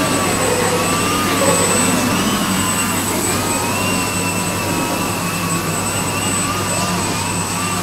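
Radio-controlled model airplane hovering nose-up, its motor and propeller whining steadily, the pitch wavering up and down as the throttle is worked to hold the hover.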